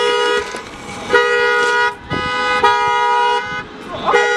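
Parked car's alarm sounding its horn in repeated steady honks, each about three-quarters of a second long and coming roughly every one and a half seconds, about four in all.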